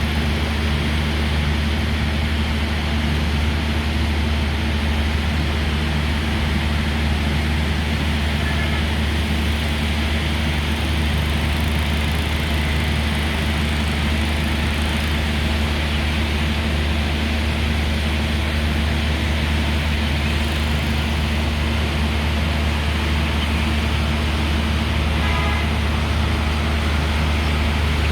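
Steady rain falling over a constant low hum of vehicle traffic.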